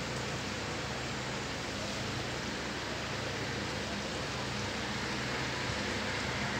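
Steady city background noise: a constant hiss with a faint low hum beneath it, as of distant traffic.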